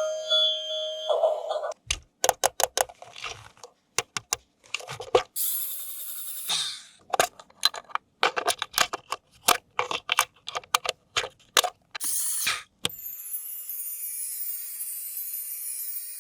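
Toy being handled: a rapid, irregular run of sharp clicks and rattles, with a few short hissy scrapes among them.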